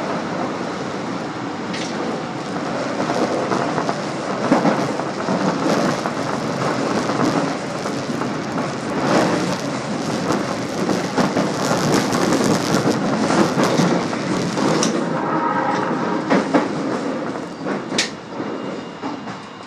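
Subway train running through a tunnel, with a steady rumble of wheels on rail and scattered rail clicks. The noise dies down near the end.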